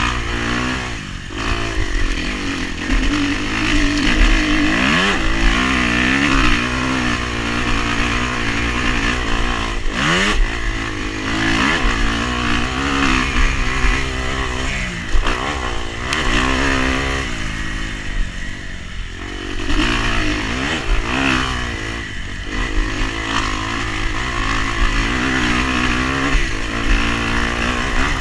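Off-road vehicle engine running under throttle while being ridden, its pitch rising and falling again and again as the rider opens and closes the throttle.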